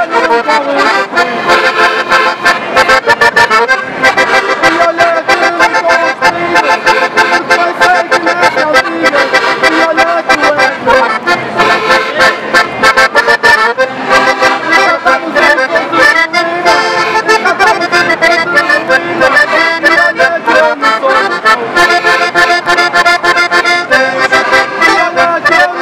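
Several accordions, piano and button accordions, playing a Portuguese folk tune together with a quick, steady pulse.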